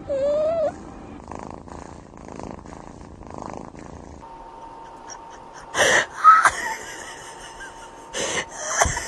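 A cat gives a short rising meow, then soft pulsing sounds at about two a second. A cat then hisses in several loud, harsh bursts, the loudest about six seconds in and more near the end.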